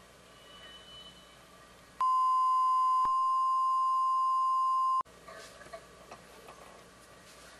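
A steady broadcast reference test tone of about 1 kHz, about three seconds long, that starts and cuts off abruptly, sent with colour bars during a break in the TV transmission. Faint court background with a few light knocks before and after.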